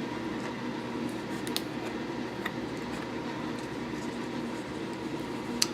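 Steady background room hum with a few faint, short ticks.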